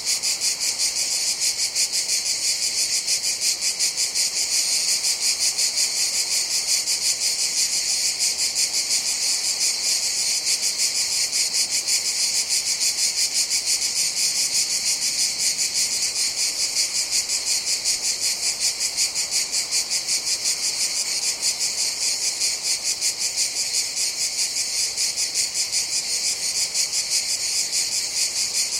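Chorus of cicadas buzzing continuously, a dense high-pitched drone with a rapid pulsing flutter.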